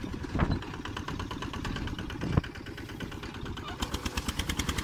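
Small farm tractor engine running under load while pulling a disc plough through soil, a steady rapid pulsing, with two sharp knocks about half a second and two and a half seconds in. The pulses turn crisper near the end.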